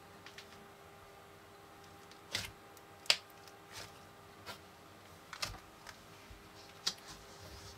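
Homemade foam-bead slime being squeezed and played with by hand, giving irregular sharp crackles and pops, about seven in all, the loudest about three seconds in.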